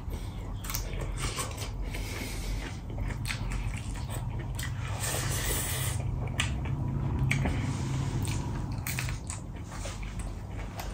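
A person chewing and eating, with wet squishing mouth sounds and short clicks as fingers mix rice and curry on a steel plate.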